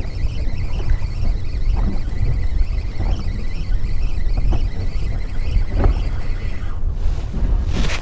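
Wind buffeting the microphone in an open boat: a steady low rumble, with a few light water knocks and a short hiss of a gust near the end.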